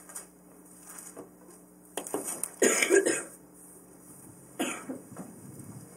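A person coughing and clearing the throat a few times, the loudest cough about halfway through.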